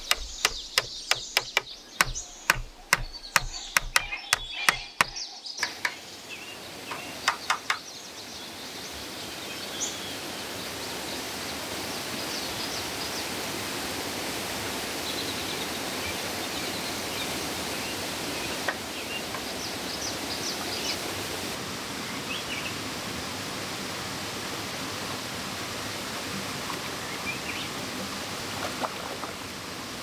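About a dozen sharp knocks, two to three a second, over the first five seconds from hand work on green bamboo; then a steady outdoor hiss with scattered high bird chirps.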